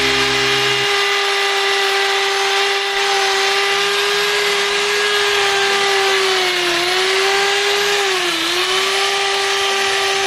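Electric hand drill spinning a buffing wheel against an aluminium motorcycle engine casing, polishing the metal: a steady motor whine that dips in pitch twice, briefly, in the second half as the drill slows under the wheel's load.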